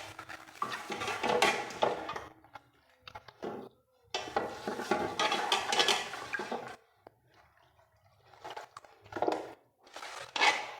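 Kitchen handling sounds in three bursts of a few seconds each: dishes and a utensil clattering and scraping while a raw chicken is seasoned with onion and spice mix.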